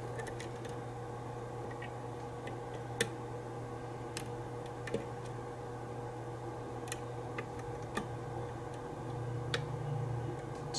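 Small, sharp clicks here and there, spaced irregularly, as a pin tumbler lock is single-pin picked with a hook pick under light tension from a tension wrench: the pins setting at the shear line. A steady low hum runs underneath.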